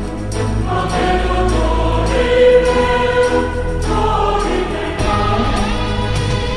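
Background music: a choir singing over a steady low bass.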